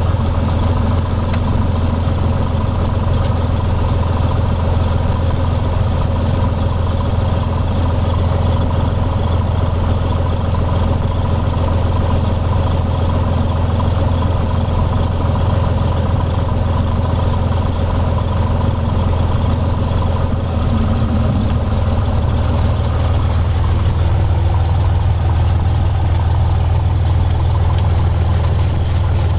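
Cessna 182's six-cylinder piston engine and propeller running steadily at low taxi power, heard from inside the cockpit as a deep, constant drone. The note shifts slightly about two-thirds of the way through.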